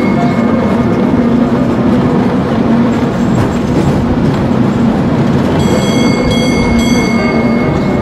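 Streetcar running on its rails with a steady rumble. From about two-thirds of the way through, a bell rings repeatedly.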